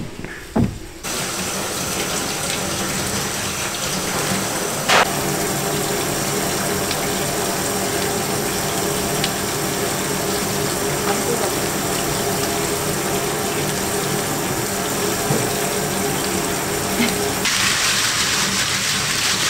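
Water running steadily from a tap into a sink, turning brighter and splashier near the end, with one short click about five seconds in.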